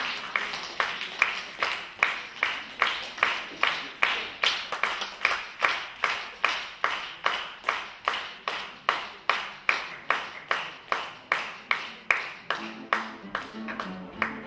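Rhythmic hand clapping in a steady, even beat of about two and a half claps a second. Near the end, a low instrumental line of held, stepping notes comes in under the claps.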